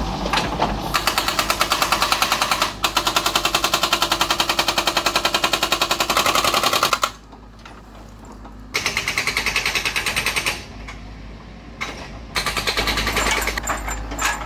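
Hydraulic breaker hammer on a Volvo excavator pounding a rock face, rapid even blows about eight a second. It hammers in three runs: a long one that stops about seven seconds in, a shorter one from about nine to ten and a half seconds, and another near the end.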